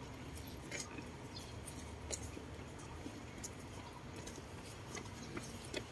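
Quiet outdoor ambience: a steady low rumble with a few faint, scattered clicks and ticks.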